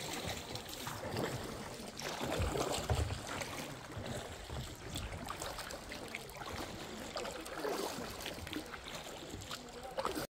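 Paddling a kayak on a shallow river: water trickling and splashing off the paddle blades, with a couple of dull knocks about two to three seconds in.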